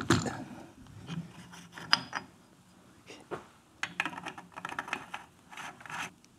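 Metal-on-metal clinks and scraping from hand tool work on a motorcycle's front fork top nut at the triple clamp. A sharp knock comes right at the start and another about two seconds in, then short bursts of rubbing and clicking as the nut is worked by hand.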